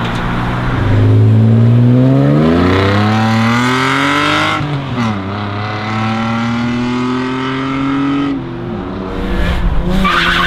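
A car accelerating hard away, its engine note climbing through the gears with a brief drop in pitch at each of two gear changes, then falling away about eight seconds in.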